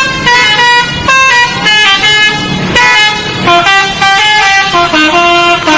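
Indonesian bus 'telolet' horn: a set of musical air horns playing a loud tune of quick stepped notes, several tones sounding together, starting suddenly.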